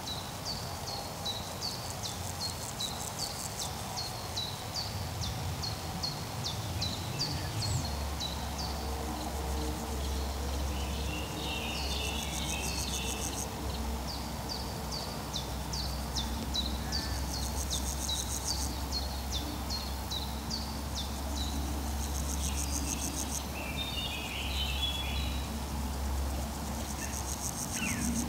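Meadow ambience: a bird repeats a short, falling chirp about three times a second, with a couple of brief warbling phrases, while insects stridulate in short high buzzing bursts every few seconds. A steady low rumble sets in about eight seconds in.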